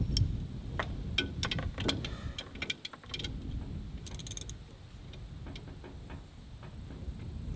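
Ratchet wrench clicking and metal clinking on the bolts of a brush hog's slip clutch as they are loosened and tightened, in irregular bursts that are busiest in the first half.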